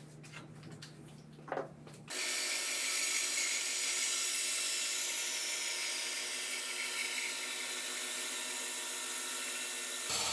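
Band saw running and cutting through a softwood board stood on end to form a tenon, coming in abruptly about two seconds in and holding steady. A few light knocks of wood being handled on the table come before it.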